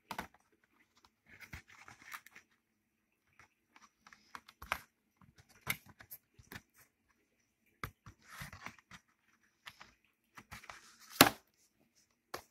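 DVD cases and their cardboard and plastic packaging being handled: scattered plastic clicks and taps with bouts of rustling, and one louder sharp snap near the end.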